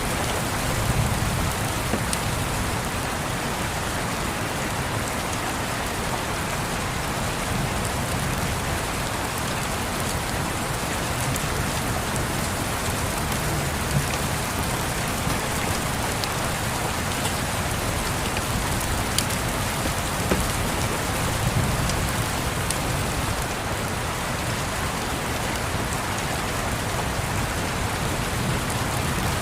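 Steady rain, with a few sharp clicks scattered through it and soft low rumbles of distant thunder swelling now and then.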